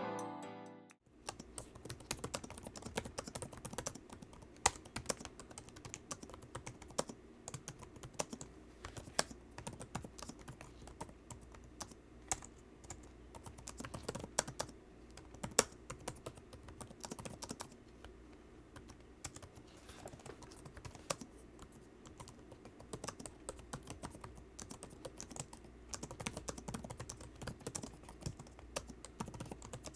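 Typing on a Dell XPS 17 9700 laptop keyboard: a continuous, irregular stream of quiet key clicks.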